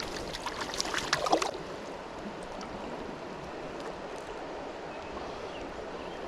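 Creek water running steadily, with a few sharp clicks and knocks in the first second and a half.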